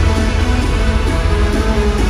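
Loud live trance music over a festival sound system, with heavy, steady bass, heard from within the crowd.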